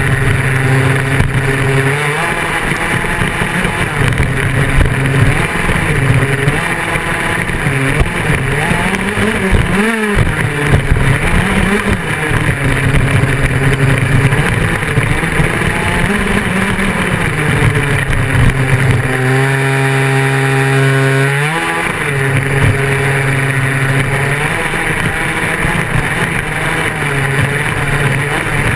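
Engine of an off-road RC buggy, heard from on board, buzzing as it drives with its pitch rising and falling as the throttle is worked. About twenty-one seconds in, it holds a steadier higher note and then revs up in a sharp climb.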